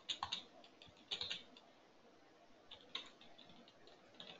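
Faint typing on a computer keyboard: quick runs of key clicks in short bursts about a second apart.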